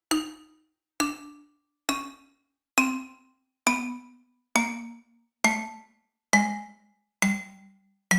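Cartoon footstep sound effect made of mallet-struck, xylophone-like notes, one about every second, each a step lower in pitch than the last: the classic effect of a cartoon character walking down stairs.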